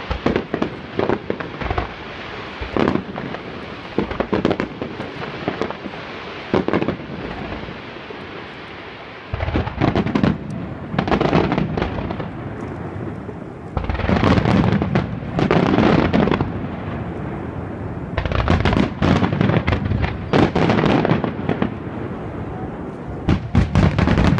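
Starmine fireworks barrage: many shells bursting in rapid succession, booms and crackles overlapping with echo. The bangs come in waves, thinning briefly before heavier volleys about ten seconds in, in the middle, and near the end.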